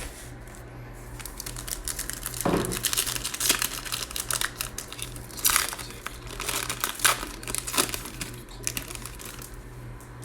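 Wrapper of a basketball trading-card pack being torn open and crinkled in the hands. The crackling goes on from about a second in until near the end, with a few louder rips.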